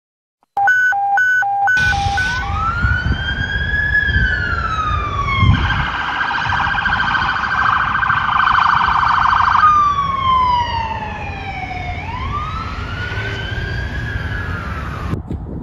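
Whelen electronic police siren. It opens with a few short repeated beeps, then wails slowly up and down, switches to a fast phaser warble for about four seconds, and returns to the wail before cutting off suddenly near the end. A low road rumble runs underneath.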